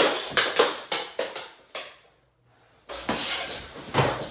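Mini hockey sticks clacking against each other, the puck and a hard floor in a quick run of sharp knocks during a face-off scramble. After a brief pause the knocking picks up again, with a heavier thump about four seconds in.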